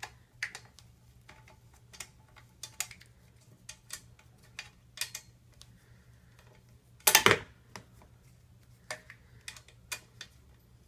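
Scattered sharp metal clicks as a tool works the bolts of an SCS scooter's bar clamp during tightening. About seven seconds in there is one much louder, brief clatter.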